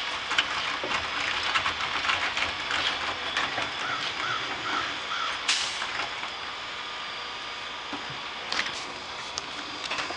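Heil 5000 rear-loader garbage truck being loaded: trash cans clattering and knocking against the hopper, with one louder burst about five and a half seconds in. A bird calls four times in a quick series midway.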